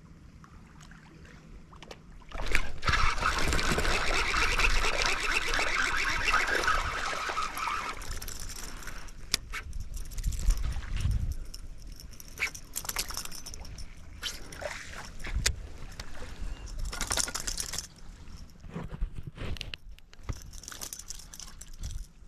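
Lake water sloshing and trickling, loudest for a few seconds early on, then quieter splashes and scattered small knocks.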